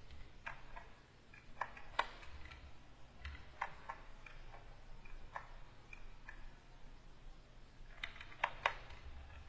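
Irregular light clicks and taps from working a graphics tablet pen and computer keys, spaced out at first, then a quick cluster of several near the end.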